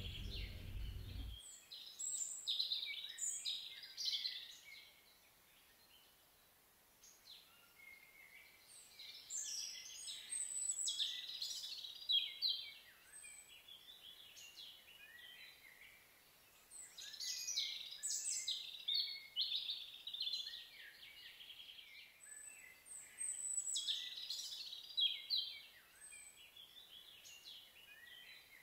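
Songbirds singing in high, chirping phrases that come in bouts of a few seconds with quieter gaps between. A low rumble stops about a second in.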